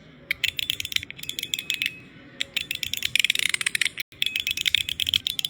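Metal fidget toy being worked in the hand, giving rapid runs of small metallic clicks and clacks. The clicking eases off about two seconds in, then picks up again and is denser, and it breaks off for an instant just after four seconds.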